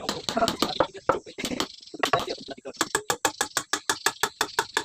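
A rapid series of sharp knocks, about five or six a second through the second half, like repeated tapping on wood. Indistinct voices are heard in the first half.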